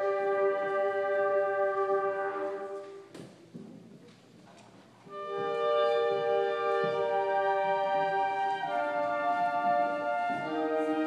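Concert band playing a fanfare in held chords: a chord dies away about two and a half seconds in, a pause of about two seconds follows, then the band comes back in with a held chord that moves to new chords twice.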